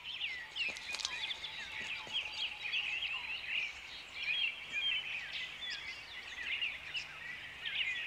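A dense chorus of forest birds chirping and twittering rapidly, many short overlapping high calls. A faint, slowly falling whistle sounds in the first few seconds.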